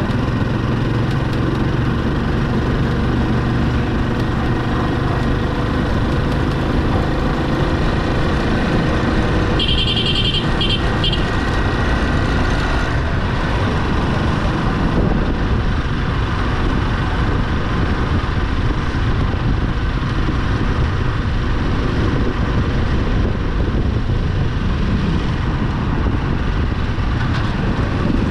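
Motorcycle tricycle (motorcycle with sidecar) riding along a street: its small motorcycle engine running steadily under the hum of road and wind noise. A few short high beeps sound briefly about ten seconds in.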